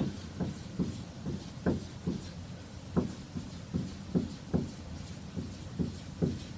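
Dry-erase marker tapping and scratching on a whiteboard as small circles are drawn one after another: a short tap with each circle, about two or three a second, some seventeen in all.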